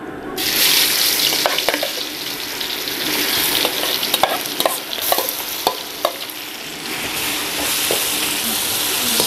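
Masala-marinated prawns hitting hot butter in an aluminium wok, setting off a loud sizzle about half a second in that then holds steady. A metal slotted spoon clinks against the pan several times as the prawns are spread out.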